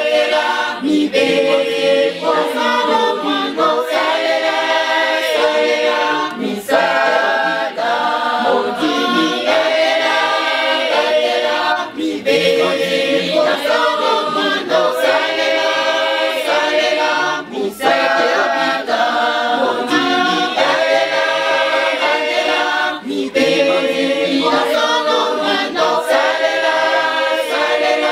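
Women's church choir singing a hymn a cappella, with no instruments, in phrases of about two seconds separated by short breaks.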